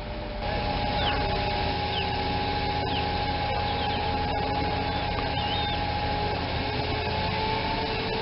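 Heavy lifting equipment running steadily, an engine hum with a held whining tone over it. A few short high chirps sound now and then.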